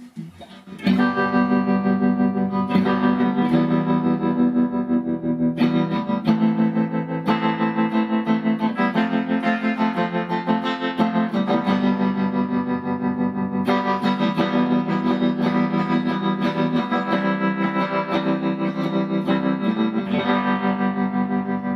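Electric guitar played through a Fender Custom Vibrolux Reverb valve amp with its vibrato channel effect on, starting about a second in. The volume pulses quickly and evenly, which is Fender's vibrato, really an amplitude tremolo.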